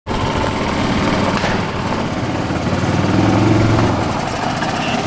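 Golf cart engine running as the cart drives along a dirt track, growing a little louder about three seconds in.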